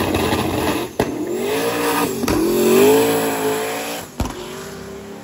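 Drag car launching and accelerating hard down the strip, its engine note climbing in pitch with a few sharp breaks as it shifts, loudest about three seconds in and then fading as it pulls away.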